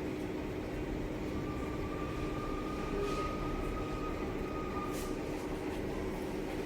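LG convection microwave running its 220 °C preheat: a steady hum of fan and motor, with a faint whine that comes in about a second and a half in and fades out before five seconds.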